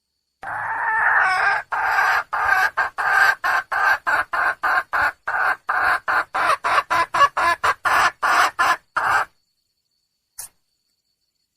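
Junglefowl hen calling: one drawn-out note, then a quick run of short clucks, about three a second, stopping abruptly near the end, followed by a single faint click. This is the wild hen's call for a mate, used to draw in a male.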